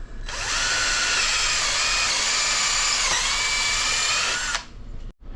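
Battery-powered drill running for about four seconds, drilling a hole in wood: a steady whine that sags in pitch twice as the bit loads up, then stops.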